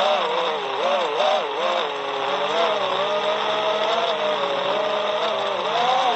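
Brushless motors and propellers of a 5-inch FPV quadcopter, heard from the drone's own onboard camera, whining with a pitch that swings up and down with the throttle during the first couple of seconds, holds steadier in the middle, and swings again near the end.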